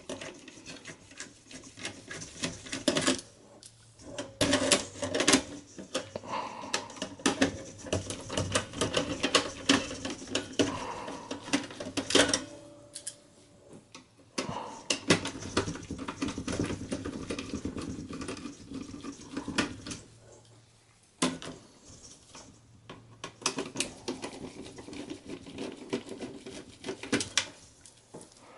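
A Phillips screwdriver working the motherboard screws out of a Dell Optiplex 7020 small-form-factor steel case: irregular clicks, scrapes and small metallic clinks, with a few short pauses.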